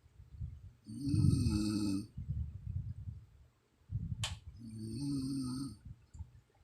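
A sleeping woman snoring: two long, pitched, rasping snores about three and a half seconds apart, with rough low breaths between them. A single sharp click comes just before the second snore.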